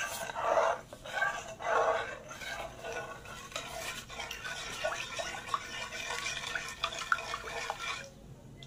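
Metal spoon stirring a thin liquid jelly mixture in a metal pot: swishing through the liquid with many small clinks and taps against the pot, louder swishes near the start and around two seconds in, tailing off near the end.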